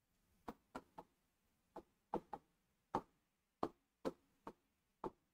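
Faint, irregularly spaced light taps, about a dozen of them with short gaps between.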